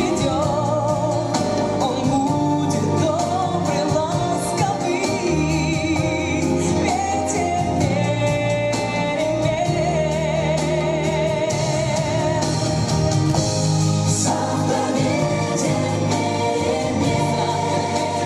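A choir singing a melodic song with vibrato over a sustained keyboard accompaniment.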